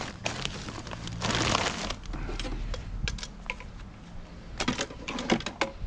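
Rubbish being handled in a bin: a rustle, then scattered sharp clicks and knocks that come thick and fast near the end.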